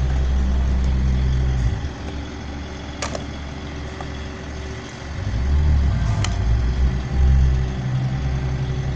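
A motor vehicle's engine idling, a steady low hum that drops away for a few seconds midway and then returns. Two sharp clacks come about three and six seconds in.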